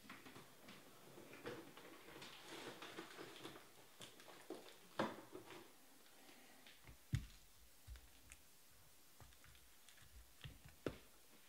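Faint handling noise: scattered small clicks, taps and rustling, with a few sharper knocks about five, seven and eleven seconds in.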